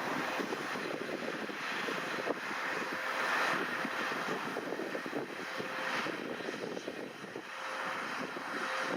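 Claas Lexion 670 combine harvester running while harvesting oilseeds: a steady machine noise that swells and fades every couple of seconds, with a faint steady hum under it.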